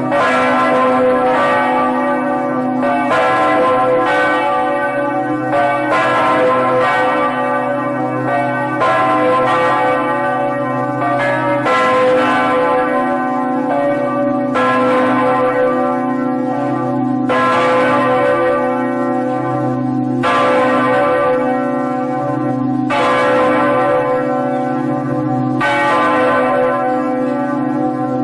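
Large bell rung repeatedly, a new strike about every three seconds, each one ringing on with a deep hum under the next.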